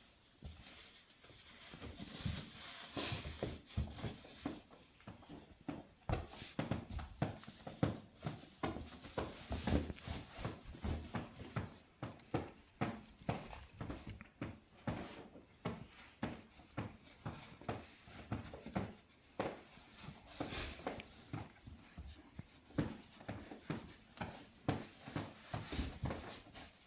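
House cats moving about in and around new cardboard boxes and baskets: an irregular run of soft thumps, taps and rustles, a few a second, as paws land on and shift the boxes.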